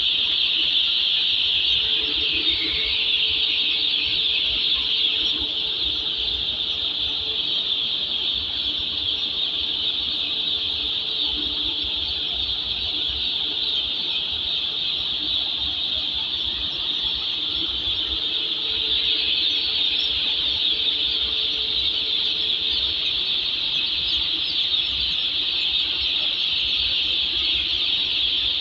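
Day-old chicks, hundreds of them in crates, peeping together in a steady, dense, high-pitched chorus.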